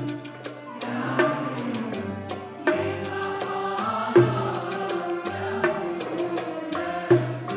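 A choir sings Arabic songs with a traditional instrumental ensemble. A riq's jingles strike in a steady rhythm over low notes on each beat.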